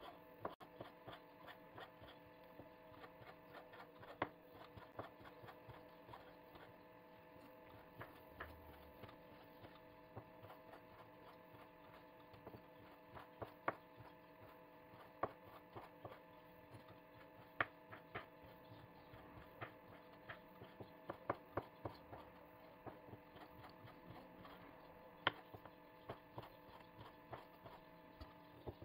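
Chef's knife slicing apricots on a wooden cutting board: faint, irregular taps of the blade against the board, a few louder than the rest. A faint steady hum runs underneath.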